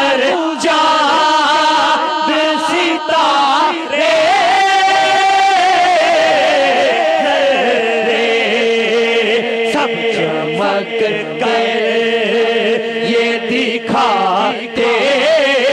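A man singing a naat, an Urdu devotional poem, through a microphone and PA, drawing out long held notes in the middle, with other voices chanting behind him.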